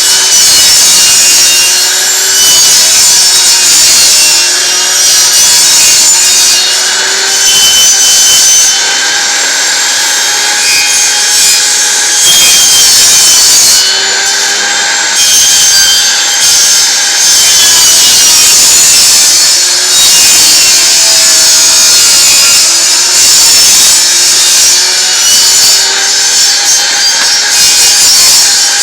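Table saw blade cutting 5/8-inch plywood as the disc is turned against it on a pivot, a loud continuous whine whose pitch wavers and dips every few seconds as the load on the blade changes. The blade is being raised in small steps, making shallow passes around the circle.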